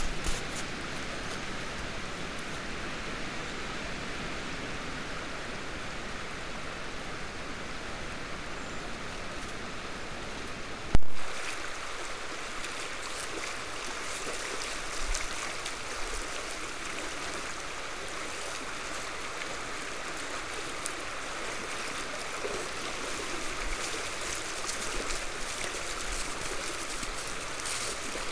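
Steady rush of a shallow stream flowing, with one sharp click about eleven seconds in at a join between trail-camera clips. Later, light irregular splashing as white-tailed deer wade through the water.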